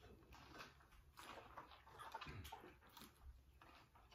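Faint, quiet chewing and mouth sounds of someone eating a fresh rice paper roll, with a few small soft clicks.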